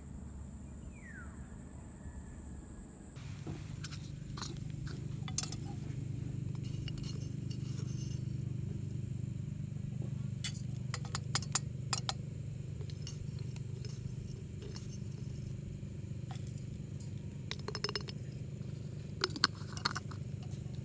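Insects buzzing at first; then, after a sudden change about three seconds in, utensils clinking and scraping on cookware at irregular intervals over a steady low hum.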